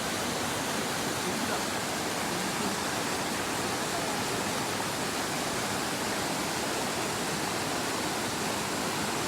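Mountain stream water rushing over rocks, a steady even hiss with no change.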